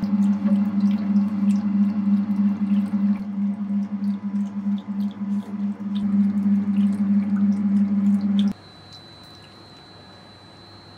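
Electric dough mixer running, its motor giving a steady hum with a regular pulse as the hook turns through runny dough, with light splashing and dripping. It cuts off abruptly about eight and a half seconds in, leaving a quiet steady hiss with a thin high whine.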